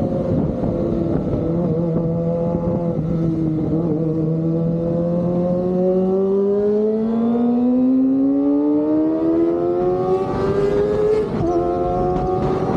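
Kawasaki ZX-25R's 250 cc inline-four engine through an Austin Racing aftermarket exhaust, holding a steady note, then revving up smoothly under acceleration. About eleven seconds in it breaks briefly for a gear change and pulls on at a lower pitch.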